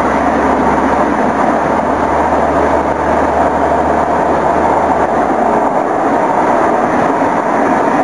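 Rushing wind and road noise from a moving car, picked up by a camera mounted on the outside front of the car. The rush is loud and steady, with a low drone under it that drops away about six seconds in.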